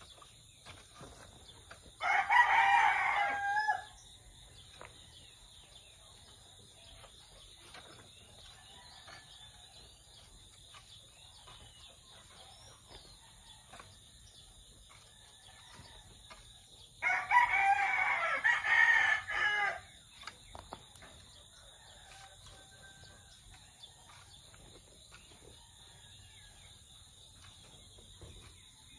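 A rooster crowing twice, once about two seconds in and again, longer, about seventeen seconds in. Between the crows, faint scraping of a rake working loose soil.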